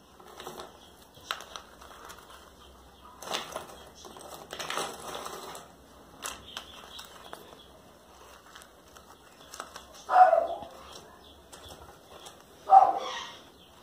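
Chunky dark potting substrate being handled: pieces rustling and clattering as they are scooped from a plastic bowl and dropped and pressed into a small plastic pot around an orchid seedling. The sounds come irregularly, with two louder clatters about ten and thirteen seconds in.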